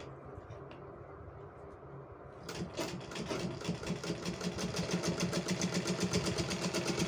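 Black domestic straight-stitch sewing machine running a line of top stitching. About two and a half seconds in, a fast, even clatter of stitches starts, about ten a second, and keeps going.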